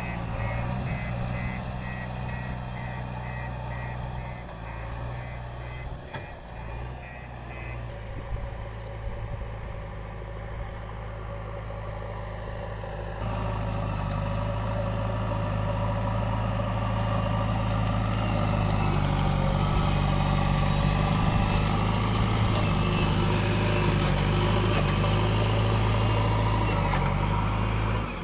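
JCB 3DX backhoe loader's diesel engine running steadily, with a rapid repeating beep over the first several seconds. About halfway through, the engine gets louder and stays up, as if working under load.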